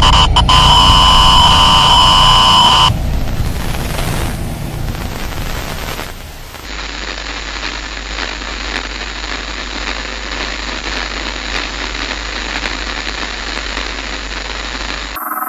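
Loud electronic static, with a shrill whine in it for about the first three seconds. It then settles into a steadier hiss of static over a low hum, which cuts out just before the end.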